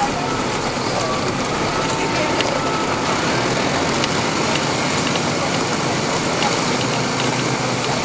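Inside a Nova Bus RTS city bus: its Detroit Diesel Series 50 diesel engine running with a steady drone, and scattered clicks and rattles from the bus body.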